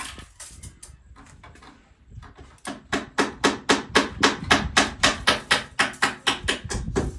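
Hammering on a bamboo bed frame during assembly: a few scattered knocks, then from about two and a half seconds in a fast steady run of hammer blows, about three to four a second.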